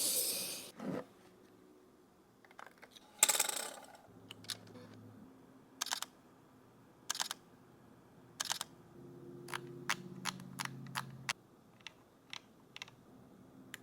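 Panasonic Lumix GX85 mirrorless camera's shutter clicking: single shots a second or so apart, then a quicker run of clicks, with a faint motor hum under some of them.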